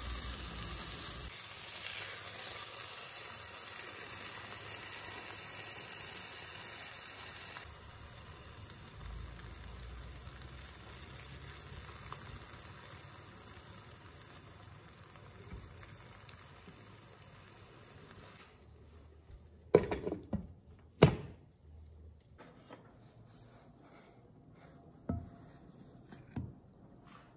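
Vegetables and beaten egg sizzling in a nonstick wok and being stirred with chopsticks. The sizzle drops to a quieter level about a quarter of the way in and stops about two-thirds through. It is followed by a few sharp knocks; the two loudest come a second apart.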